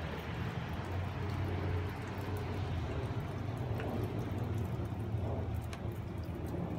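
Steady rain falling, an even hiss with scattered drip ticks, over a low rumble.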